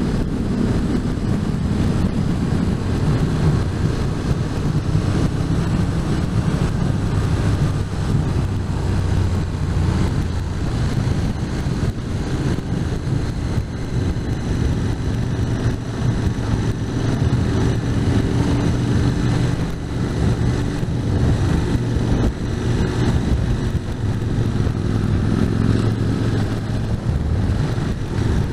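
Motorcycle engine running steadily at road speed, with wind noise on the microphone.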